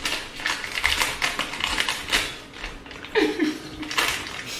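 Crinkling and rustling of a plastic packet being torn open by hand, a quick irregular run of crackles.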